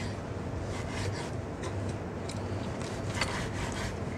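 Chef's knife slicing through a cooked tomahawk steak on an end-grain wooden cutting board: faint scrapes and a few light taps of the blade against the wood, over a low steady hum.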